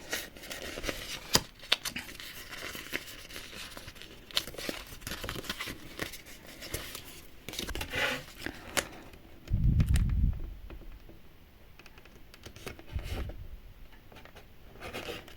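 Paper sticker pieces and their backing being handled at close range: light crinkling, peeling and small clicks of fingers on paper. There are two dull thumps, one about ten seconds in and another about three seconds later.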